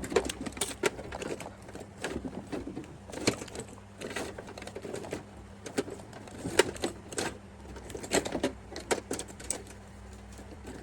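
Scattered light clicks and knocks of hands handling PC parts while an SSD is fitted into the case, over a faint steady low hum.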